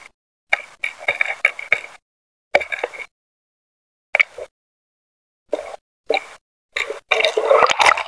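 Water plopping and bubbling in short separate bursts, then a longer, louder splash near the end as a speared flounder is lifted out of the water, streaming water.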